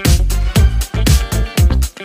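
Background dance music with a steady beat and deep bass.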